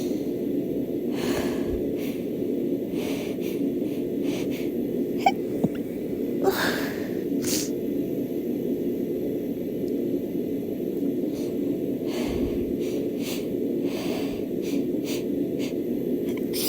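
A woman hitching and sneezing, set off by dust: a string of short, sharp noisy breaths spread through, the strongest event about six and a half seconds in, over a steady background hum.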